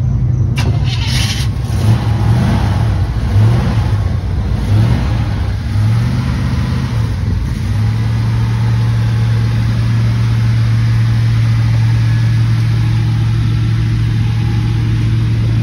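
Square-body Chevrolet pickup's engine being blipped, its note rising and falling several times, then settling into a steady idle about halfway through. A sharp click sounds just after the start.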